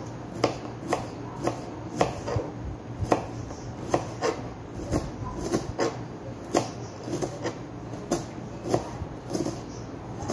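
Kitchen knife chopping onion on a plastic cutting board: sharp knocks of the blade on the board, about two a second at an uneven pace.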